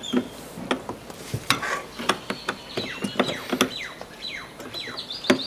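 Scattered clicks and knocks of hard plastic latch and mount hardware being worked by hand on a rugged storage case. From about two seconds in, a bird chirps in the background, faster near the end.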